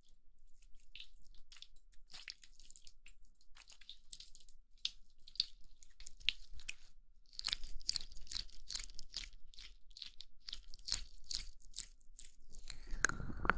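Oil-slick hands rubbed together close to an ear-shaped binaural microphone, a crackly, sticky patter that grows denser about halfway through. Near the end the hands close over the microphone's ears and the rubbing turns louder and deeper.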